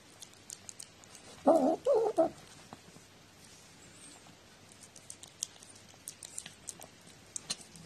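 Domestic cat vocalizing while eating, a quick run of three short sounds about one and a half seconds in. Faint clicks of chewing and licking at the plate follow.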